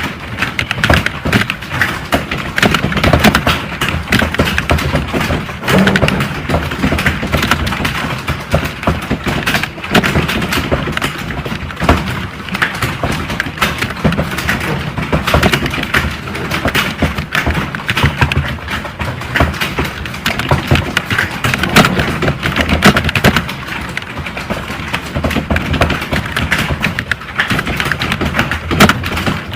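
Fast, continuous typing on a computer keyboard: a dense run of key clacks, several strokes a second, with no pauses.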